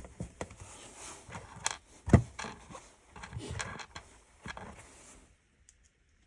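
Small clicks, taps and short scrapes of screws being handled and put back into a plastic car light-control housing, with one sharper knock about two seconds in. It falls quiet about a second before the end.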